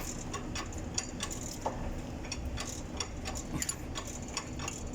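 Irregular light metallic clicks and ticks, a few a second, from hand work on the engine, over a faint low hum.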